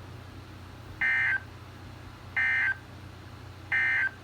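Emergency Alert System end-of-message signal: three short bursts of digital SAME data tones, about 1.3 seconds apart, over a low steady hum. They mark the end of the severe thunderstorm warning message.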